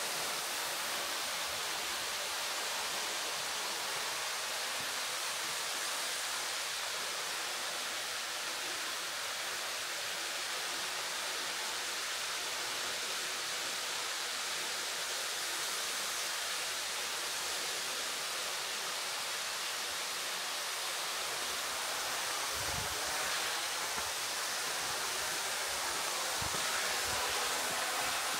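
Steady rush of flowing water, like a creek or small waterfall, with a few soft low thumps near the end.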